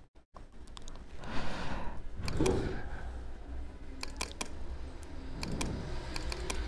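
Scattered computer mouse clicks and key taps, most of them in a run in the second half, over low room hum, with a short rustle about a second and a half in.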